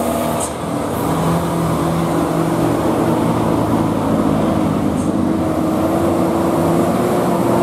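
Heavily loaded Mitsubishi Fuso Fighter X dump truck's diesel engine labouring at low speed on an uphill climb, running steadily with its pitch edging up slightly near the end.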